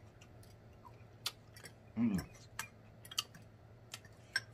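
Close-miked chewing of pasta: scattered sharp wet mouth clicks and lip smacks, with one short rising-and-falling "mm" hum about two seconds in.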